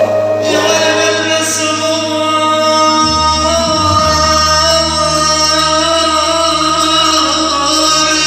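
Male voice singing a mawwal, Arabic improvised vocal song, in long held notes over live instrumental accompaniment whose sustained bass note changes about three seconds in.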